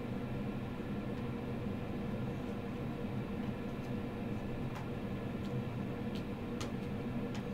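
Steady low mechanical hum, with a few faint light ticks in the second half.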